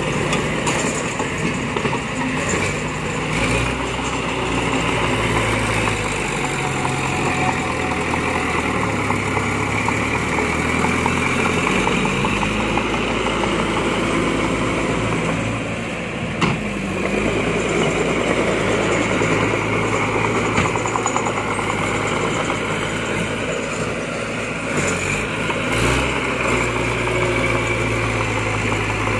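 Engines of a small crawler bulldozer and a dump truck running steadily, the engine note shifting up and down a few times, with one sharp knock about halfway through.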